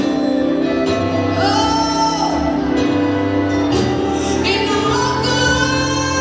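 Live gospel music: a female voice singing long held notes over a band's steady accompaniment.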